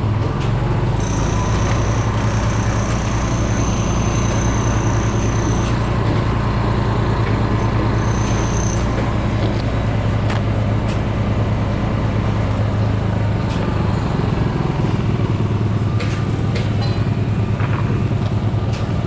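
Construction-site machinery running steadily with a low engine-like drone. A thin high whine joins it from about a second in to about six seconds, and again briefly around eight seconds.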